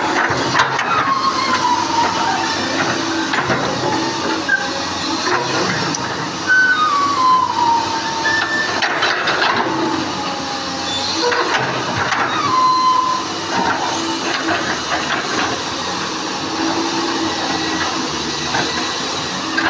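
Komatsu heavy machine running loudly with a strong hiss and a steady hum, several whines gliding down in pitch and scattered knocks; the owner calls this the machine coughing.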